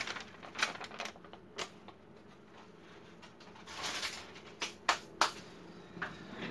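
Newspaper being folded up and crumpled by hand, a dry rustling with crackles, then two sharp clicks about five seconds in.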